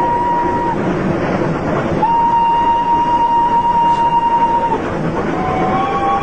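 Train whistle blowing long, steady blasts over the running noise of a moving train. One blast ends under a second in and a second lasts from about two to nearly five seconds in, followed by a two-note whistle near the end.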